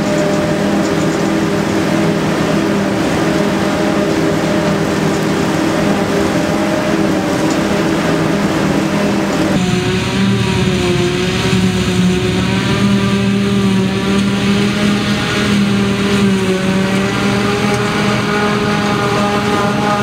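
Claas Jaguar forage harvester and John Deere tractor running steadily together while harvesting silage: a constant machine drone with several held tones. The mix shifts abruptly about ten seconds in, and after that the tones waver slightly.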